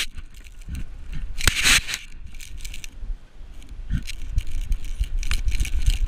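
Handling noise from a GoPro worn by a dachshund: fur and sand rubbing and scraping on the camera housing, with irregular clicks and rattles over a low rumble as the dog moves about.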